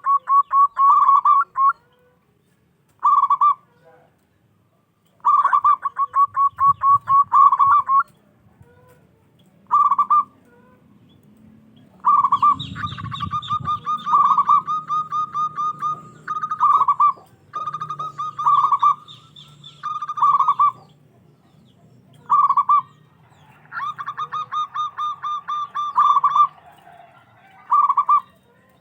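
Zebra dove cooing loudly: repeated phrases of fast, stuttering coos, each phrase a second or more long, with short pauses between them.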